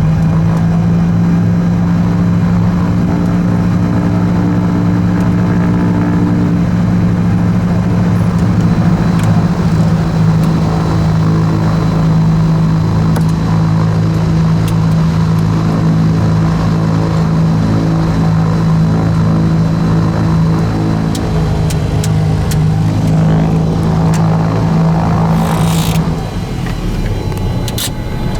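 The Cessna 340A's twin Continental TSIO-520 piston engines running with a steady, even drone. Near the end the drone drops away and the level dips, with a brief hiss.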